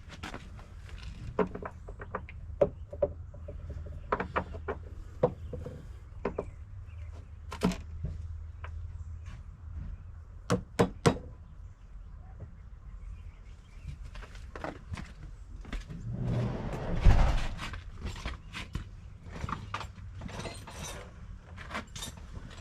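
Demolition work on a wooden deck: scattered sharp knocks and clacks of boards and tools being handled, with a second-long rush of scraping noise ending in a heavy thump about 17 seconds in.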